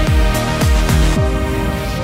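Electronic background music: a heavy, deep kick-drum beat that drops out about a second in, leaving held chords.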